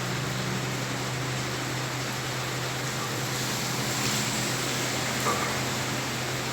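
Heavy rain falling steadily, with a low steady hum running underneath.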